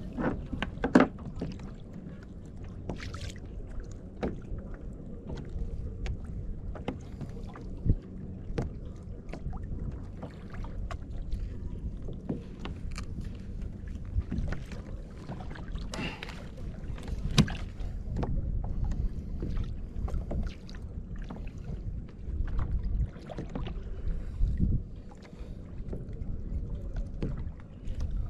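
A kayak on the water: a steady low rumble of water and wind noise, with many small knocks and clicks scattered throughout.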